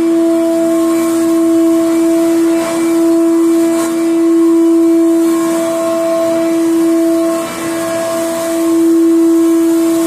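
A row of electric motor-driven centrifugal water pumps running: a steady hum with one strong tone and fainter higher tones over a constant hiss.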